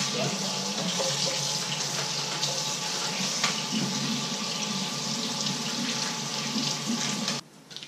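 Water running steadily from a kitchen tap into the sink, shut off abruptly about seven seconds in.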